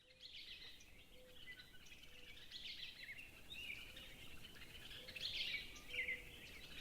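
Faint chorus of wild birds, many quick chirps and trills overlapping. Underneath, a short low note repeats about once a second.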